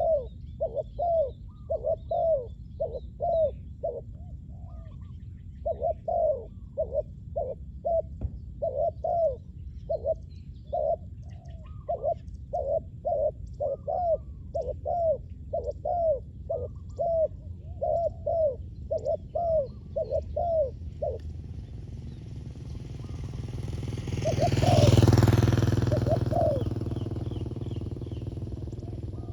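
Spotted dove cooing in a rapid run of short, arched coo notes, two to three a second, breaking off about 21 seconds in. Near the end a vehicle passes, swelling up and fading away; it is the loudest sound, with a few more coos heard under it.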